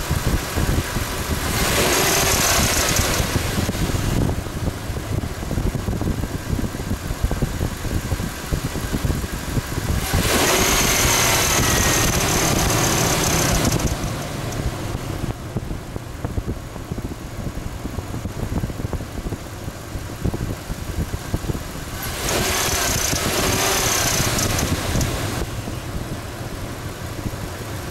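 Ford 4.6L V8 idling, its serpentine belt running on a wobbling harmonic balancer whose rubber insert has worked out: the owner takes this for the cause of the belt chirp. Three louder hissing stretches of a few seconds each rise over the idle, about two, eleven and twenty-three seconds in.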